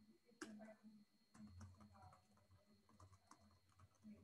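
Faint typing on a computer keyboard: irregular, scattered key clicks.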